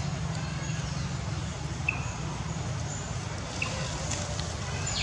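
Outdoor ambience: a steady low rumble with a few short high chirps and falling high whistles scattered over it.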